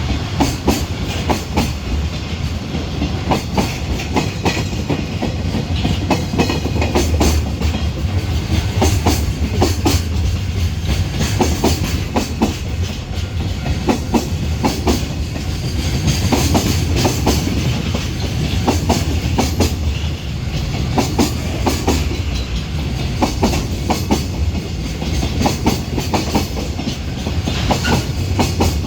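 Container freight train wagons rolling past, their wheels clacking over the rail joints in a steady, unbroken run of clicks over a low rumble.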